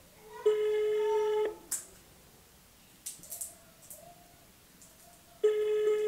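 Telephone ringback tone of an outgoing call: a steady tone about a second long, heard twice about five seconds apart, with a few faint clicks in between. The called line is ringing and has not yet been answered.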